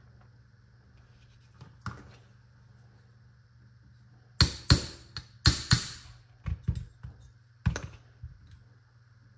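Small hammer tapping a steel pin punch to drive out the trigger pin of a Baikal double-barrel shotgun's action, resting on a bench block. After a light click about two seconds in, about ten sharp metallic taps come in uneven groups over the second half, each with a short ring.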